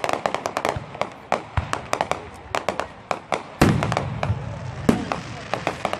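Aerial fireworks going off in quick succession: many sharp cracks, with one heavy low boom about three and a half seconds in that rumbles on briefly.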